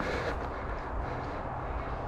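Steady low rumble on a body-worn camera's microphone, with faint rustling and footsteps of someone moving along a brushy dirt trail.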